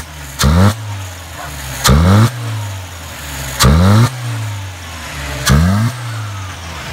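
Toyota 2T carburetted four-cylinder engine idling and blipped four times in short, quick revs about every two seconds, each rev rising sharply and dropping straight back to idle.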